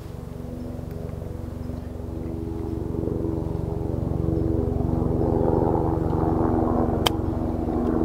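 A steady engine drone grows louder over the first five seconds or so. About seven seconds in there is a single crisp click: a golf club striking the ball on a low chip shot from the grass just off the green.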